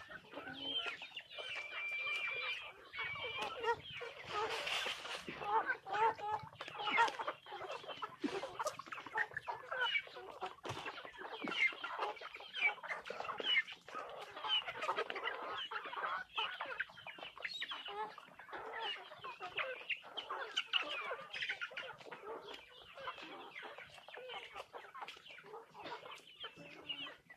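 A flock of chickens clucking as they feed, making many short, overlapping calls without a break.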